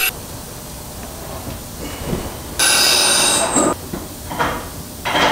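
Auto-shop noises: a hiss of about a second, ending in a short falling whistle, then several short knocks and clatters near the end.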